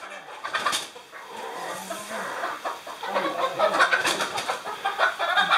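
Domestic hens clucking and squawking as they are herded and handled, with rustling and flapping, busier and louder from about three seconds in.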